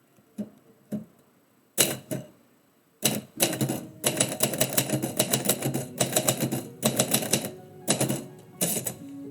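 Typewriter keys striking the platen: a few single keystrokes, then, from about three seconds in, a fast, steady run of typing.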